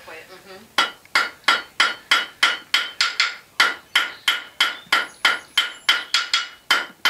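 Blacksmith's hand hammer striking a red-hot steel rod on an anvil, drawing out the shank of a hand-forged square nail. A quick, steady run of about three blows a second begins about a second in, each blow leaving a bright ring.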